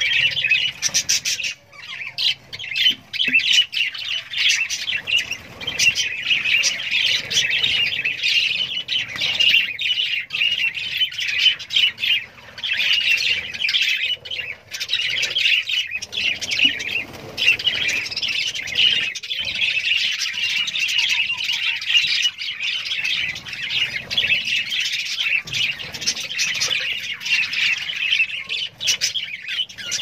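A flock of budgerigars chattering and squawking, a dense, continuous twittering with no let-up.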